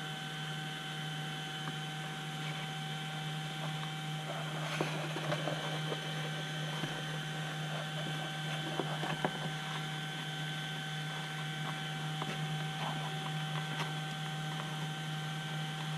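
Steady electrical hum, with a few faint clicks and rustles from wires being pressed into a channel in a foam wing.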